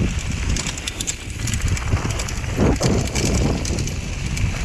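Mountain bike descending a packed-dirt trail: tyres rumbling over dirt and loose stones, with the bike clattering and rattling in many short knocks.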